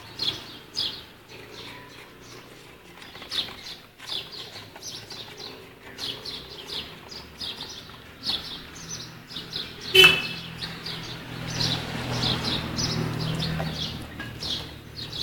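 Small birds chirping over and over in short, high calls. A sharp knock about ten seconds in, and a low steady hum in the second half.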